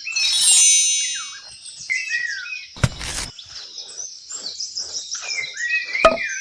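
Birds chirping and calling, many short chirps and quick pitch glides overlapping, with a loud whistled call in the first second and a short burst of noise about three seconds in.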